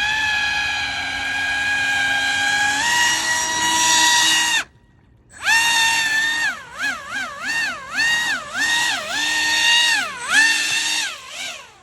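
Pro Boat AeroTrooper 25 RC airboat's electric motor and air propeller whining at high speed, stepping up in pitch about three seconds in. It cuts out near the middle, then comes back as repeated quick throttle blips, the whine rising and dipping over and over before dying away near the end.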